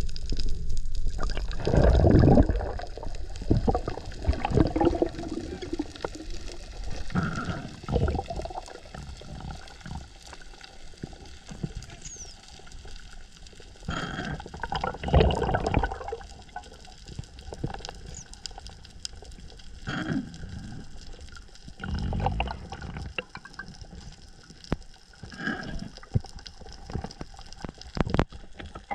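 Water sloshing and bubbling around an underwater camera during a spearfishing dive, coming in irregular surges a second or two long over a steady hiss.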